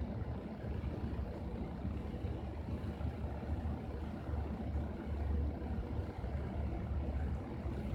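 Steady low rumbling noise that wavers slightly in strength, with no distinct events.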